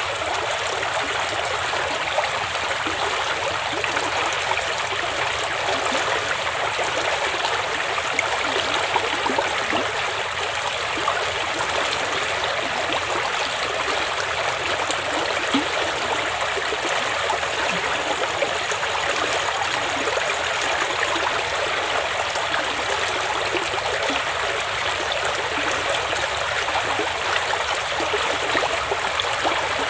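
Shallow stream water running steadily past a muddy bank, an even rushing without breaks.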